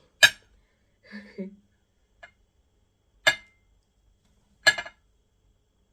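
Three sharp clinks of hard objects knocking together, each with a brief ring, spread over several seconds, with a short low murmur of a voice between the first two.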